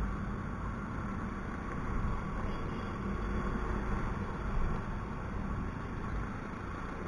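Yamaha Mio i 125 scooter's single-cylinder four-stroke engine running steadily while riding in traffic, mixed with road noise.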